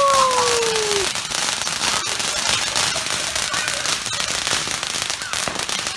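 Firework cake going off: dense, continuous crackling with many sharp snaps, and a falling whistle in the first second.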